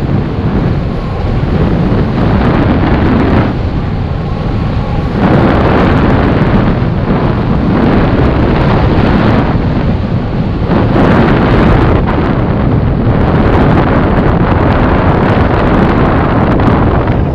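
Heavy wind buffeting an action camera's microphone, mixed with a snowboard's base and edges scraping over groomed snow during a run. The rush swells and eases every few seconds.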